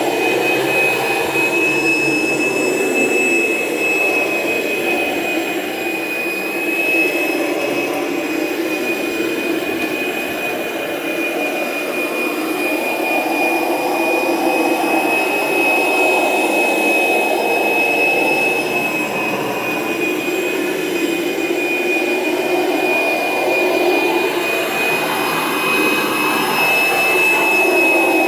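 Kirby Generation 3 upright vacuum's motor running steadily with a high whine while driving the Kirby carpet shampooer attachment, the lower rushing sound swelling and easing as the machine is worked over the carpet.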